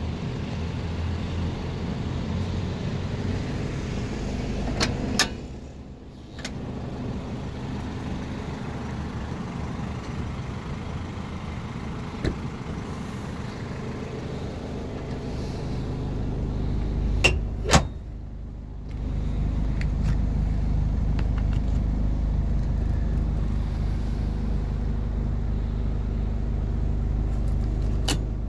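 The Isuzu Bighorn's 2.8-litre 4JB1-T turbo-diesel idling steadily, with a few sharp clicks and knocks: two about five seconds in and two about seventeen seconds in. The idle is louder from about two-thirds of the way in.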